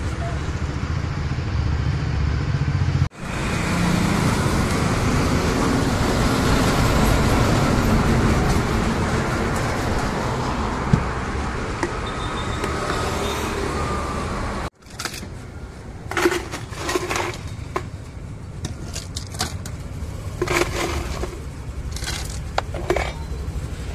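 Steady rushing background noise, like street traffic, that stops abruptly twice. In the quieter last part come scattered clinks and knocks of ice being spooned into a tall glass for a mojito.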